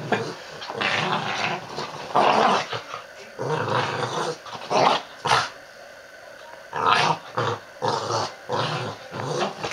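A small dog growling in repeated short bursts as it mounts and tussles with a pillow, with a quieter pause a little past the middle.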